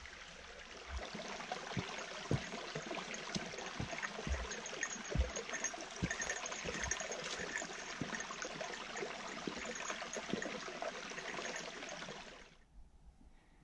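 Mountain brook running over rocks, a steady rush of water with a few soft low thumps underneath. It cuts off abruptly near the end.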